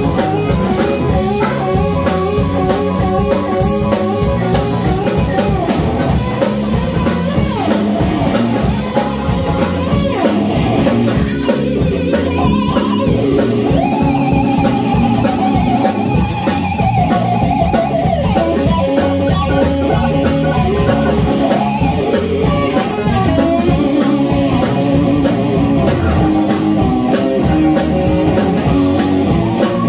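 Live rock-blues band playing an instrumental passage: an electric guitar takes the lead over electric bass, a drum kit keeping a steady beat, and keyboard. About halfway through the guitar holds long, wavering bent notes.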